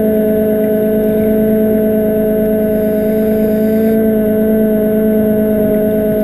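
Underwater scooter (diver propulsion vehicle) motor running at a constant speed, a steady droning whine heard underwater through the camera housing mounted on the scooter.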